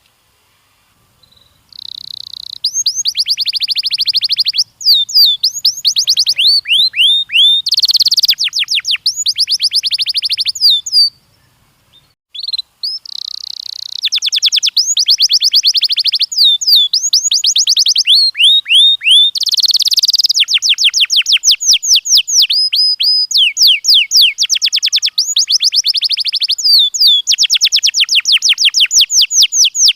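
Domestic canary singing: long phrases of fast repeated trills and rolls, with a short pause about a third of the way in.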